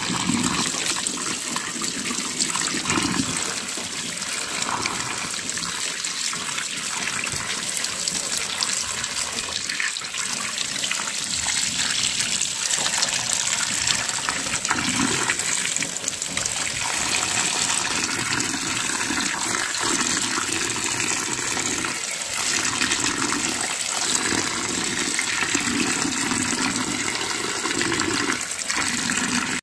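Tap water pouring steadily into a glass bowl of vegetables in a sink and splashing as carrots and pea pods are rinsed by hand.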